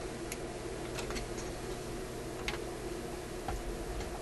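A few faint, irregular clicks of a hand tool and fingers prying at the magic eye tube socket on an old radio chassis, over a steady low hum.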